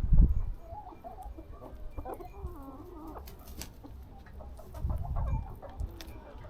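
Chickens clucking and making wavering calls while they feed, with low rumbles on the microphone at the start and again about five seconds in.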